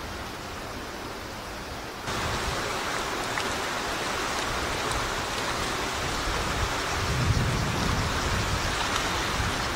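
Steady rushing and splashing of water along the stone canal wall beside the moving boat, with wind rumbling on the microphone. The rushing gets louder and brighter about two seconds in.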